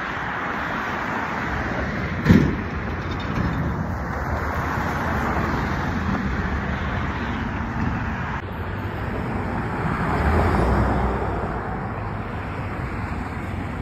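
Street traffic noise, steady throughout and swelling around ten seconds in, with one sharp knock about two seconds in.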